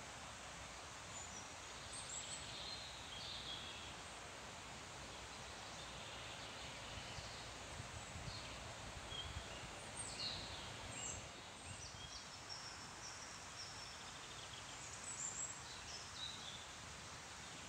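Birdsong: scattered short, high chirps and calls from small birds over a steady hiss of leaves rustling.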